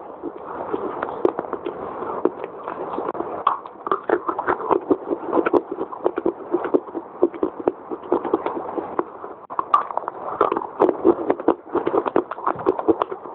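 Dry biscuit being bitten and chewed close to a clip-on microphone: rapid, dense crunching with a brief lull about nine and a half seconds in.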